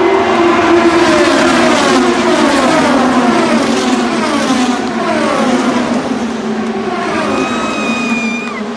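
A field of IndyCar race cars, with 2.2-litre twin-turbo V6 engines, passing one after another at speed. Each engine note falls in pitch as its car goes by, over a steady drone from the rest of the pack.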